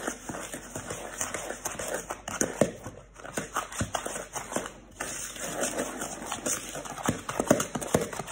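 A utensil knocking and scraping against the sides of a plastic mixing bowl, in quick irregular taps, as butter and sugar are creamed together by hand.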